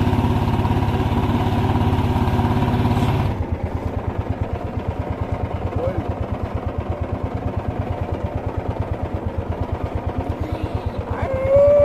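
Small boat engine running steadily, then dropping about three seconds in to a quieter, fast, evenly pulsing run.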